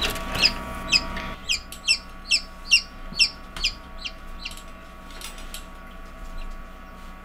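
Newly hatched chicken chick peeping over and over, about two short falling peeps a second. The peeps grow fainter and stop about five and a half seconds in, over a faint steady hum.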